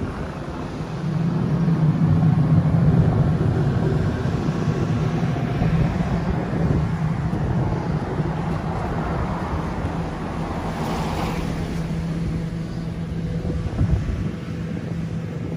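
Street traffic on a wet road with wind buffeting the microphone: a steady low hum throughout, and a vehicle swishing past on the wet tarmac about ten to eleven seconds in.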